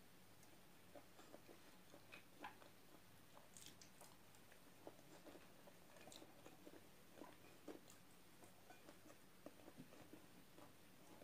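Faint chewing of fried chicken and rice, with scattered small irregular clicks and crackles as the food is eaten by hand.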